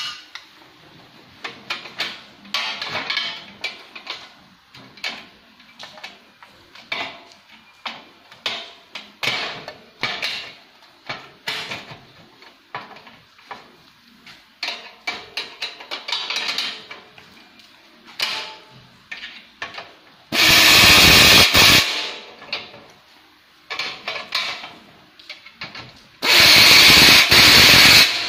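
Steel sewing-table stand parts being handled, with frequent short metallic clanks and clicks. There are two loud bursts of a power tool, one about two-thirds through lasting about a second and a half, and one near the end lasting about two seconds.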